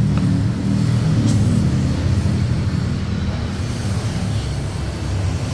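A steady low mechanical rumble of a machine running, with a short hiss about a second in.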